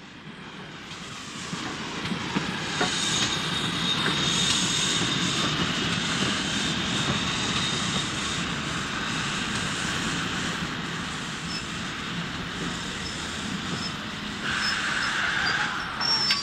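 A train running: a steady rumble that fades in over the first couple of seconds and holds, with a brighter, higher-pitched squeal in the last two seconds.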